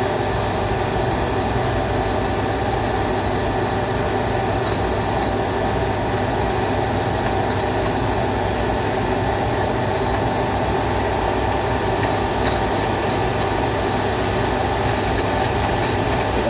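A spinning machine running steadily with a continuous grinding noise under a steady high-pitched whine and a low rumble.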